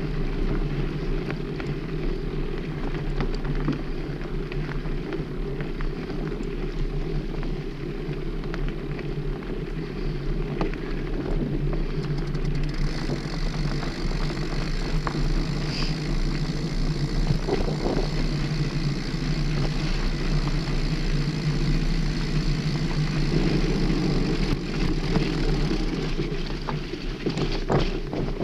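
Mountain bike riding over a dirt forest trail: steady low tyre-and-ground rumble with wind buffeting the microphone, and a few rattling clicks and knocks from the bike near the end.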